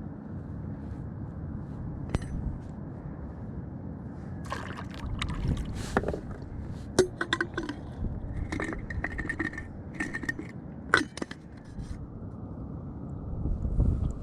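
Sea water sloshing against a kayak's hull, with a run of sharp knocks, scrapes and clinks from about four seconds in until about twelve seconds in.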